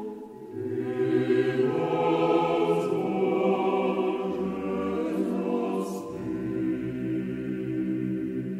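A choir singing slow, held chords, with a change of chord about six seconds in.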